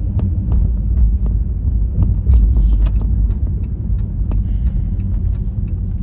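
Steady low road and engine rumble inside the cabin of a car driving at speed, with a few faint clicks scattered through it.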